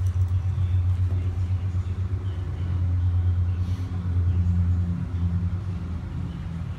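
Steady low rumbling hum, like a machine or engine running, swelling slightly now and then.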